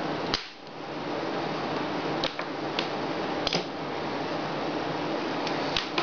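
Small screwdriver clicking and tapping against the parts of an opened iPod touch: about half a dozen short, sharp clicks at irregular intervals, over a steady hiss.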